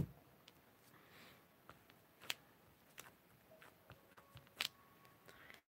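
A few faint, scattered clicks and taps of a rubber stamp on a clear acrylic block being set down on an ink pad and pressed to ink it.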